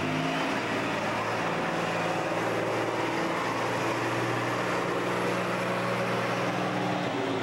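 Engines of slow-moving parade vehicles, a fire truck and a motorcycle trike, running with a steady low drone.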